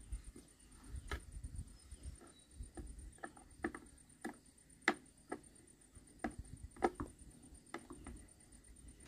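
Irregular light clicks and ticks of a screwdriver working a screw into a chainsaw's plastic housing, with some low handling rumble in the first couple of seconds.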